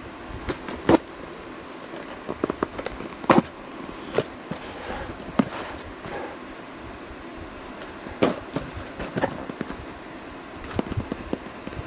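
A shipping box being opened and unpacked by hand: irregular sharp knocks, clicks and rustles as the box and its contents are handled, the loudest knocks about a second in and a little over three seconds in.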